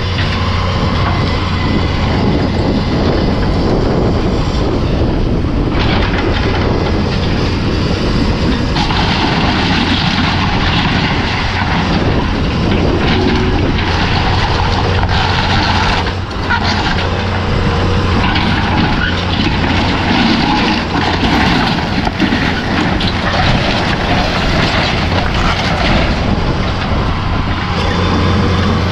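Heavy diesel equipment running steadily under load while it tears down an old wooden barn. From about a third of the way in, timber and debris crack and crunch repeatedly over the engine.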